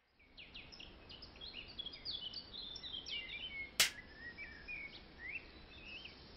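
Small birds chirping in quick, high, sweeping calls over a faint outdoor hiss. One sharp click cuts in just before four seconds.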